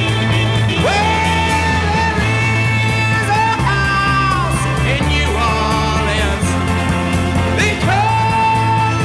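1960s rock band song: a male lead singer belting long held notes over arpeggiated electric guitar chords, bass and drums. The voice comes in about a second in.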